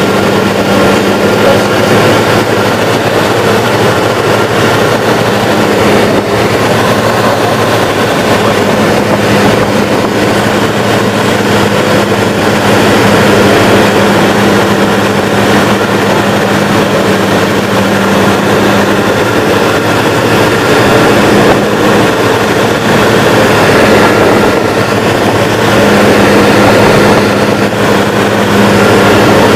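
Light aircraft's piston engine and propeller droning steadily in cruise, heard from inside the cabin.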